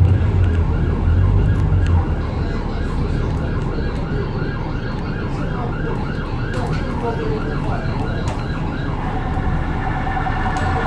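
Emergency vehicle siren in a fast yelp, rising and falling about three times a second over a low traffic rumble. Near the end it turns to a steadier tone.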